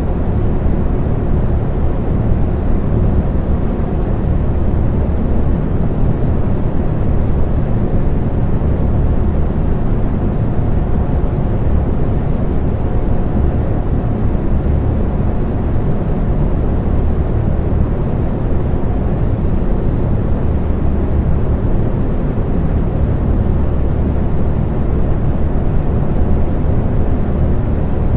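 Electric fan running steadily: a low, even rush of moving air with a faint steady hum above it.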